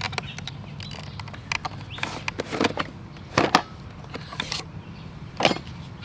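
Handling sounds from a wooden birdhouse being opened and emptied: scattered knocks and clicks with light scrapes and creaks from its hinged panels and the boxes packed inside, over a steady low rumble.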